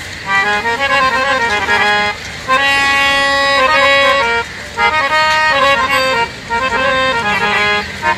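Hand harmonium playing a bhajan tune, held reedy notes stepping from pitch to pitch in phrases with short breaks between them.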